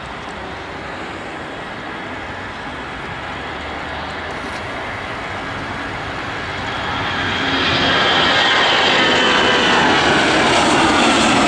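Airbus A330-200 jet engines at taxi power as the airliner rolls past. The engines grow louder about seven seconds in, and a high whine then glides slightly lower in pitch.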